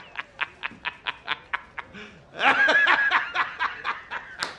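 A man laughing hard in rapid staccato "ha"s, about five a second, swelling into a louder, longer laugh a little past halfway: the J. Jonah Jameson laughing meme.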